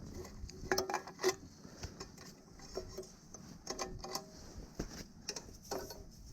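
Pieces of firewood knocking together as they are handled and stacked: sharp wooden clacks in a few clusters, each with a short hollow ring.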